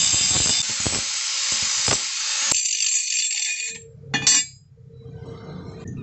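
Angle grinder cutting a small piece of steel: a harsh steady hiss with a thin whine that stops a little over halfway through. Then a loud metallic clink near the end, followed by a faint low hum.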